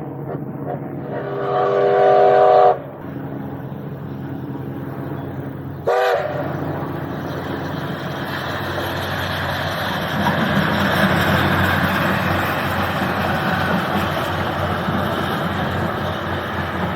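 A steam locomotive sounds its whistle for about a second and a half, then gives a short second toot a few seconds later. The train then draws near and runs past, its noise building and staying loud.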